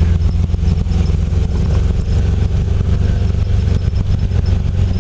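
Volkswagen Beetle's engine running steadily at low speed on a rough dirt track, heard from inside the car, with frequent small knocks and rattles.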